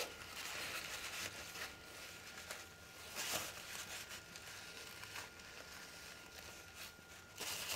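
Faint rustling and rubbing of a paper towel wiping spilled alcohol fuel off a ceramic plate around a small can stove, with a few soft light knocks.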